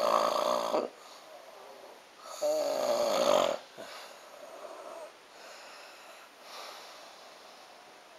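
A person snoring: one loud snore ends about a second in and a second loud snore follows about two seconds later, then a few much softer breathing sounds.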